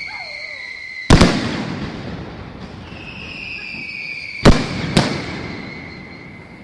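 Fireworks: a high whistle sliding slightly down in pitch ends in a sharp bang about a second in, then a second whistle is followed by two bangs about half a second apart, each echoing away.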